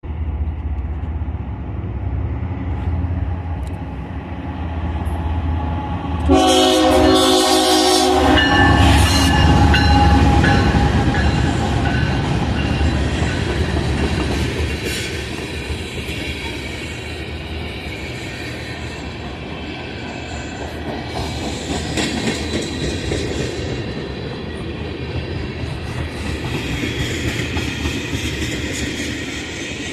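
Freight locomotive sounding its air horn, a chord of several tones held for about two seconds some six seconds in, over the low rumble of the train. After the horn the oil train's tank cars go on rumbling and clattering past.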